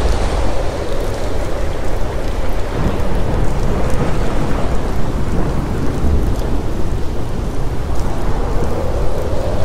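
Thunderstorm: steady heavy rain with a deep, continuous thunder rumble that swells about six seconds in.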